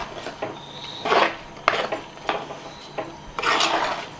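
Steel spoon stirring a thick coconut-paste curry in an earthen clay pot, scraping against the pot's rough sides and bottom in several strokes about a second apart.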